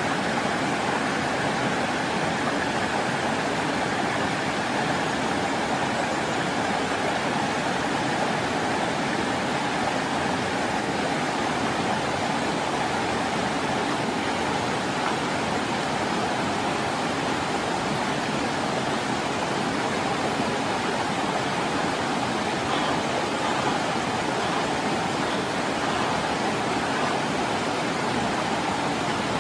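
Rocky stream rushing over boulders: a steady, even rush of water that does not change.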